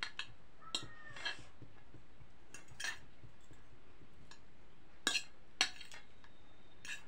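Metal spoon and fork clinking and scraping against a plate while tossing noodles, in short, irregular clinks with a few louder ones a little after five seconds in.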